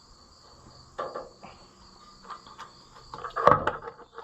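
Crickets chirping steadily, with short metallic clinks and knocks of hand tools on the engine's valve train: a few about a second in and a louder cluster about three and a half seconds in, during valve adjustment.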